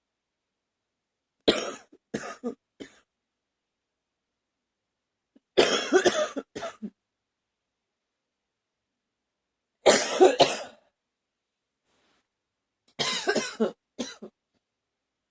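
A woman coughing in four bouts a few seconds apart, each a loud cough followed by two or three smaller ones.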